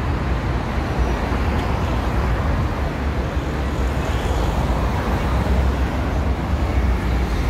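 Steady road traffic on a wide multi-lane avenue: cars and pickups passing close by, a continuous rumble of engines and tyres.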